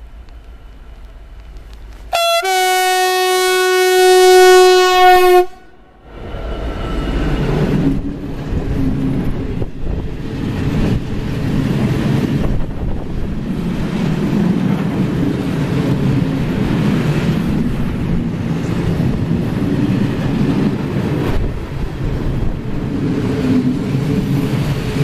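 Class 66 diesel locomotive sounding a strong horn in one long blast of about three seconds, the Rp1 "attention" signal. Then its engine passes close, and a long train of tank wagons rolls by with steady wheel clatter.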